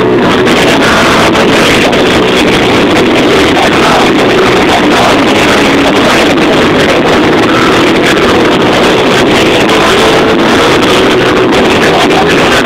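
A live band playing, recorded on a mobile phone's microphone from the audience: the music is loud and unbroken throughout, with the microphone overloaded so it sounds distorted and muddy.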